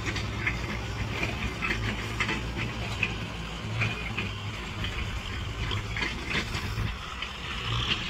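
Kubota M6040 tractor's diesel engine running steadily under load as it pushes soil with a front dozer blade, with brief higher-pitched sounds breaking in over it every second or so.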